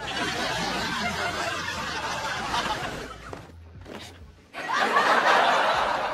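Sitcom laugh track: a studio audience laughing, dying away about three and a half seconds in, then a second, louder wave of laughter about a second later.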